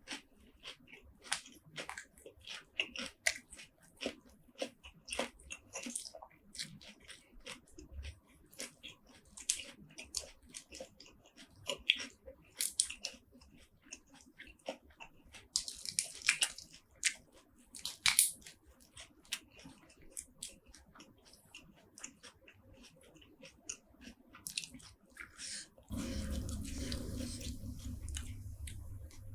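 Close-up mouth sounds of a person eating spicy seafood (shrimp, squid and shellfish): chewing, biting and wet smacking as many short, irregular clicks. About three seconds before the end a steady hiss with a low hum sets in.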